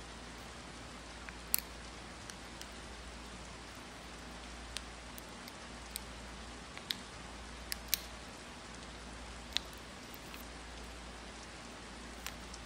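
Clear plastic sealing film being peeled off a cup of sticky HIMI jelly gouache paint: sparse small sharp ticks and crackles, about a dozen, over a steady hiss.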